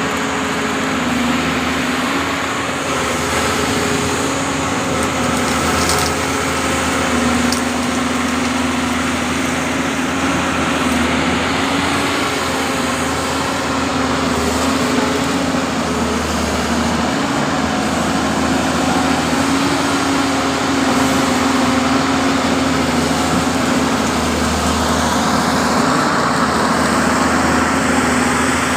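Doosan 225 hydraulic excavator's diesel engine running steadily, its note swelling and easing a little as it works, with two brief sharp cracks about six and seven seconds in.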